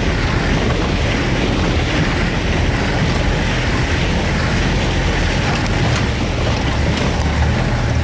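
Off-road vehicle's engine running steadily while water rushes and splashes around the wheels as it drives along a shallow creek bed, heard from inside the cab.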